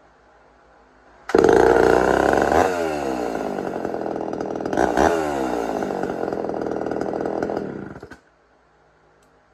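Homelite Super XL two-stroke chainsaw starts suddenly about a second in and runs loud. It is revved twice, the pitch sliding back down after each, and then cuts off suddenly.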